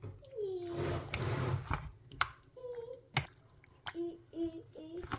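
Faint knocks and soft wet sounds as raw chicken thigh pieces are handled in a bowl of buttermilk marinade, with a few short, faint pitched sounds like a distant voice in the background.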